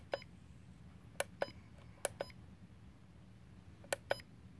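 Plastic buttons on a Hubsan X4 H107L transmitter being pressed and released, giving four pairs of short, sharp clicks about a second apart as the sensitivity settings are stepped through.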